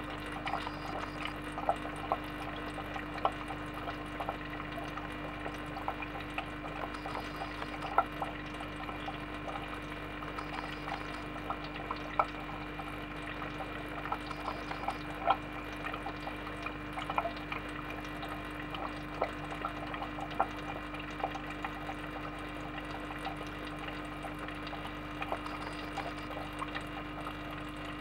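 Aquarium filter running: a steady low hum under trickling water, with irregular small drips every second or so.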